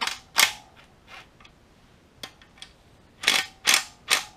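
Sharp metallic clicks from a wrench on the bolts of an LS1 engine's rear cover as they are backed off to take the tension off them. The clicks come singly and in quick pairs, each with a brief ring.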